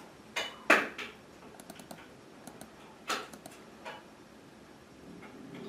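A handful of separate clicks and knocks of metal tools and parts being handled, the loudest about three-quarters of a second in and another about three seconds in, with little else between them.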